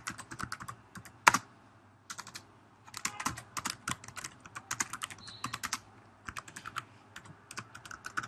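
Typing on a computer keyboard: quick runs of keystrokes with short pauses between words, and one louder keystroke about a second in.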